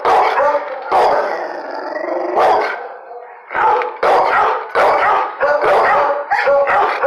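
Dog barking over and over at the bars, with one long drawn-out howl about a second in, then a rapid run of barks.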